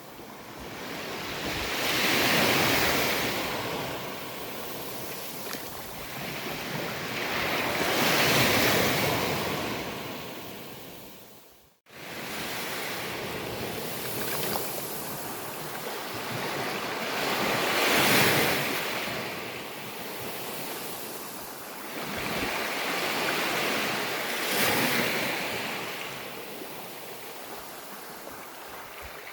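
Sea waves breaking on a beach, the surf swelling and ebbing with a wave cresting every six to ten seconds. Just before the middle the sound fades quickly to silence and then comes straight back, like an edit splice.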